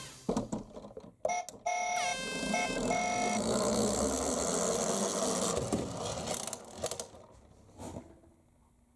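Short broken siren-like electronic beeps with one falling tone, then a steady rushing rattle of toy minicars rolling down a plastic slope, fading out over the last few seconds.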